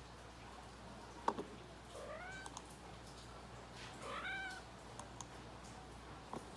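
Calico cat meowing twice, short calls that bend up and down in pitch about two and four seconds in, the second louder. A sharp click about a second in is the loudest sound, with a few faint clicks near the end.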